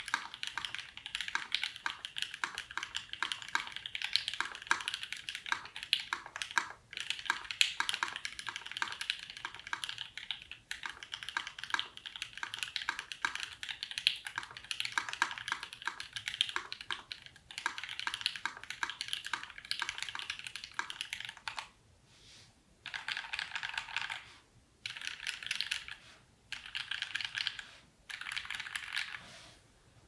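Typing on a Mercury65 prototype mechanical keyboard with a brass plate, lubed Alpaca linear switches and GMK Olivia keycaps: fast, continuous keystroke clicks. After about twenty seconds the typing breaks into a few short bursts with brief pauses, stopping just before the end.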